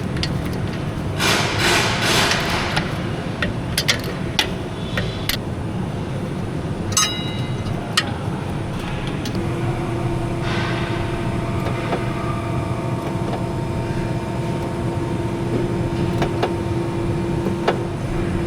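Hand-tool work on a car in a repair shop: a brief hiss-like burst, then scattered sharp metallic clicks and knocks of tools on metal. About halfway through, a steady mechanical hum at one pitch starts and keeps running.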